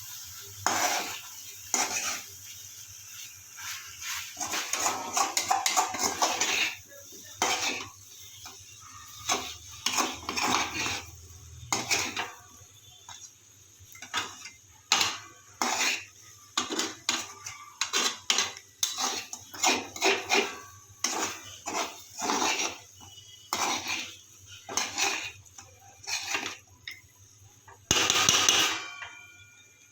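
A utensil stirring and scraping food in a cooking pan, as chicken is dry-fried without oil. It comes as repeated short scrapes roughly once a second, with a longer run of scraping about five seconds in and a loud scrape near the end.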